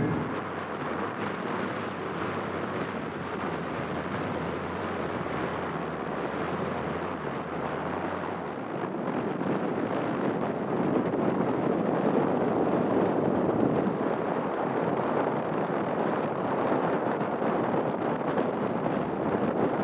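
Steady rush of wind and water aboard a moving car ferry, with wind buffeting the microphone; it grows a little louder about halfway through.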